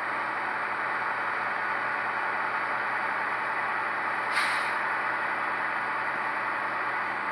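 Tsunami2 sound decoder in a model genset diesel locomotive playing its digital diesel-engine sound through the model's small speaker, running steadily with the second engine cut in under load. A brief hiss comes about four and a half seconds in.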